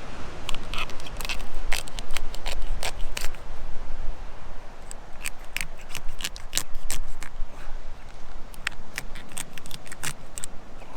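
Knife cutting lengthwise down a lobster's back, splitting the shell: a string of irregular sharp cracks and crunches.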